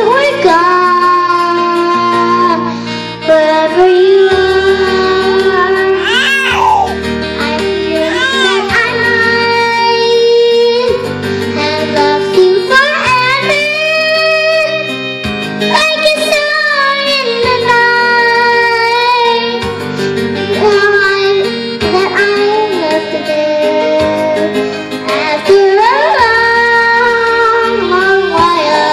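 A young girl singing a love song into a microphone over an instrumental backing track. Her voice slides between notes and holds longer notes with a slight waver, over backing chords that change every couple of seconds.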